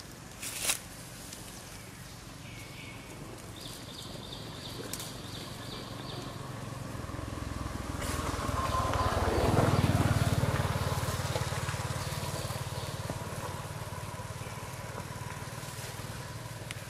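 A motor vehicle driving past: its engine hum grows louder, is loudest about ten seconds in, then slowly fades away.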